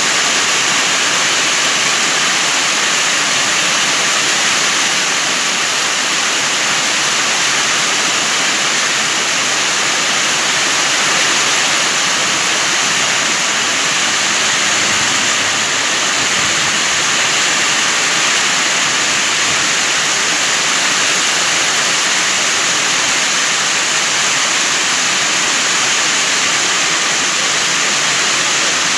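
Heavy rain pouring down, a dense, steady hiss that never lets up.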